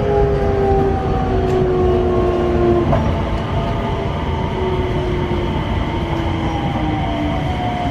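Hitachi IGBT VVVF inverter and traction motors of a JR West 225 series 100 subseries EMU, heard from inside the car over the rumble of the wheels on the rails. The motor whine slowly falls in pitch as the train slows, typical of regenerative braking on the approach to a station.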